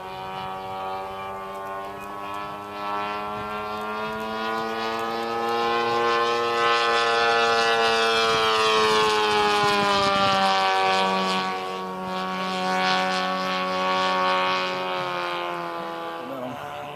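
Giant-scale radio-controlled warbird model flying past overhead, its engine and propeller making a steady drone. The drone swells to its loudest midway and slides down in pitch as the plane passes, then fades near the end.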